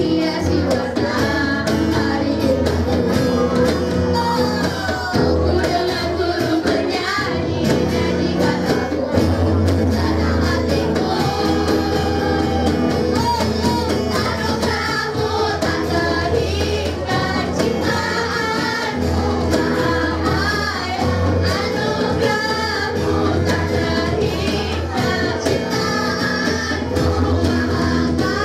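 A girls' choir singing a song together into microphones, with guitar and cajón accompaniment keeping a steady beat.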